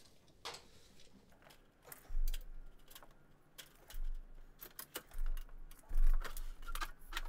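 Scattered light metallic clicks and taps as a strip of trim coil is slid, measured and set in a sheet-metal brake, with several dull low thumps from the handling.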